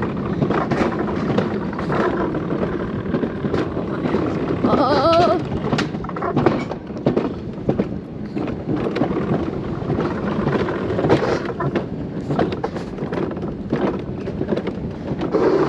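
Alpine coaster sled running fast down its steel rail track: a continuous rumble and rattle of the wheels on the rails, mixed with wind noise. A brief wavering tone stands out about five seconds in.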